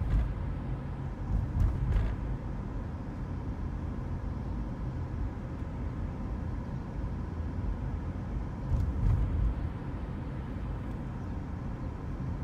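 Car driving along a city street, heard from inside the cabin: a steady low rumble of engine and road noise, with a few louder swells near the start and again about nine seconds in.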